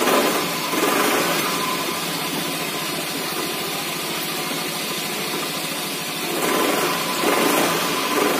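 Automatic scooter's single-cylinder engine running with the throttle opened, swelling near the start and again from about six seconds in and steady in between. The rough juddering ('geredek') of its CVT drive is what the mechanic suspects comes from worn or damaged variator rollers.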